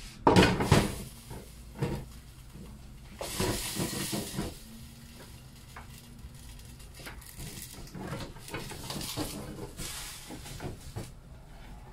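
Glass plate wrapped in a cloth tea towel being handled and set down on a stainless-steel sink drainer: a loud clatter of knocks about half a second in, a smaller knock near two seconds, then hissing and rustling with lighter knocks.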